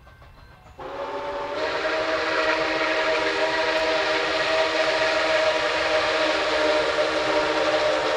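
Steam whistle of Nickel Plate Road 765, a 2-8-4 Berkshire steam locomotive, blowing one long blast. It sounds a chord of several notes, starts about a second in and grows fuller a moment later.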